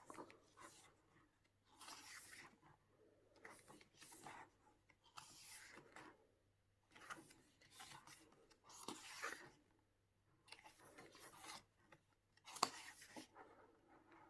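Faint paper rustling as the glossy pages of an album photobook are turned one after another, a soft swish every second or two, with one sharper tap near the end.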